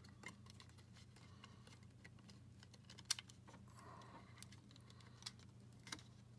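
Faint clicks and light taps of small plastic and metal camera parts being handled, as the battery holder of a GoPro Hero 7 Black is worked back into the camera body. One sharper click about three seconds in.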